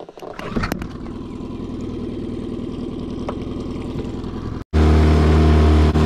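Mercury tiller outboard motor running at low throttle with a rapid, even firing. After an abrupt cut about three-quarters of the way in, it runs louder and steadier at higher throttle with the boat under way.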